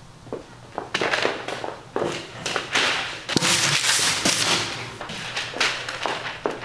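Fingers and a wooden pencil tapping and drumming on a wooden desktop: a rapid, irregular run of sharp taps that comes thickest about halfway through.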